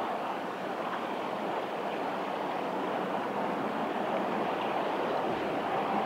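Steady rushing of flowing river water, with a faint low rumble creeping in near the end.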